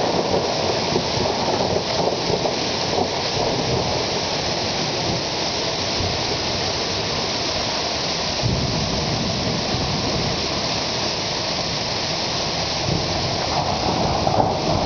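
Hail mixed with heavy rain falling steadily, a dense even hiss of stones and drops striking leaves, roofs and the ground. A low rumble joins about halfway through.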